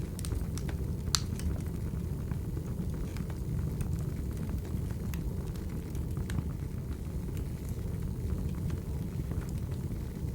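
Wood fire burning with a steady low rumble and scattered sharp crackles and pops, the strongest pop about a second in.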